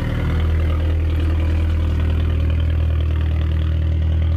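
Car engine idling steadily, a loud, even low drone that neither rises nor fades.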